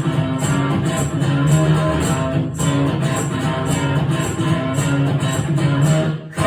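Guitar strummed in a steady rhythm through a passage without vocals, with a brief drop just before the end.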